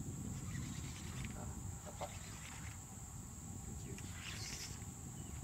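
Steady high-pitched buzzing of a tropical insect chorus, over a low rumble, with a few faint clicks and a brief hiss about four seconds in.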